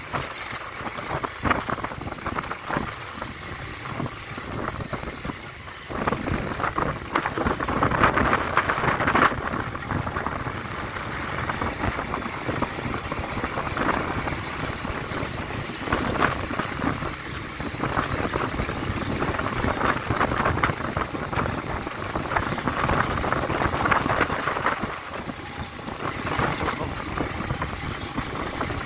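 Small motorcycle being ridden on a rough gravel road: the engine running under steady wind noise on the microphone, the level rising and falling.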